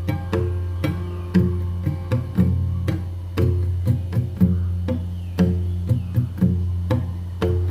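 Instrumental music with no singing: plucked strings over a steady low bass drone, with a regular drum beat of strong strokes about once a second and lighter strokes between.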